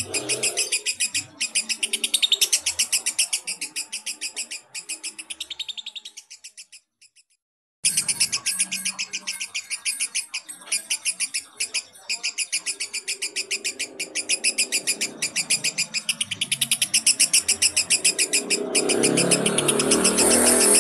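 Lovebird giving its long 'ngekek' chatter: a rapid, even run of shrill notes, about ten a second. The chatter fades and stops about six seconds in, then starts again abruptly a second later and runs on.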